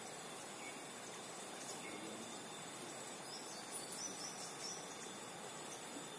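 Outdoor ambience: insects droning steadily over a low even hiss, with a few short high chirps in the middle.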